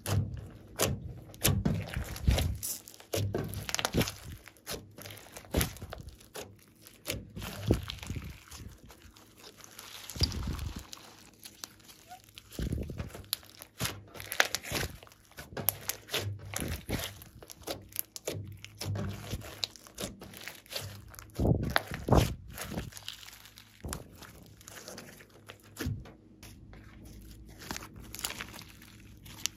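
Hands kneading, squeezing and stretching glossy slime with small beads mixed in, making wet squelches and many short sticky clicks and pops at an uneven pace.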